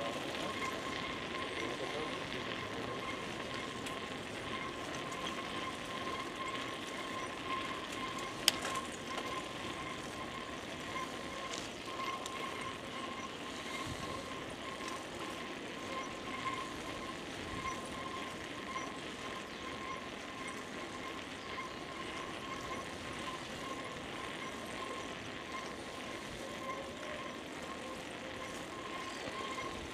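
Bicycle riding noise: a steady rush of tyres and moving air with a constant thin high whine, and one sharp click about eight and a half seconds in.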